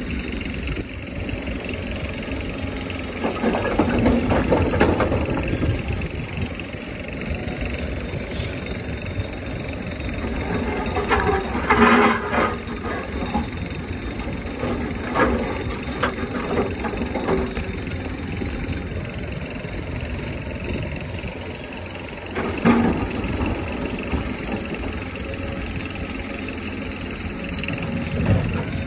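Hydraulic excavator's diesel engine running steadily under load, with the bucket scraping and knocking against rock several times, loudest about twelve seconds in and again sharply near the end.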